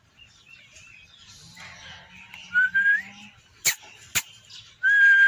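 A person whistling: a short rising whistle, then a longer steady one near the end, with two sharp clicks in between.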